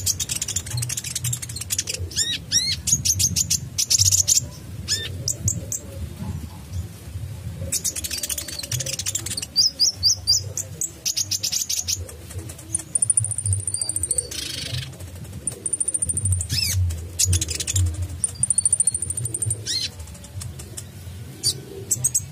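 Caged sunbird (the 'kolibri ninja' of Indonesian bird-keepers) singing without a break: fast, sharp, high chirps and trills. In the second half it holds a thin, steady high whistle for about a second, three times. A low hum runs underneath.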